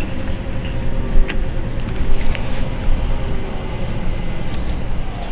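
Mercedes-Benz Citaro C2 Euro 6 city bus's diesel engine idling steadily, with a few light clicks over it.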